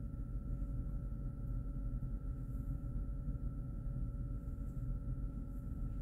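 Steady low room rumble with a faint constant hum, unchanging throughout, with no speech or distinct events.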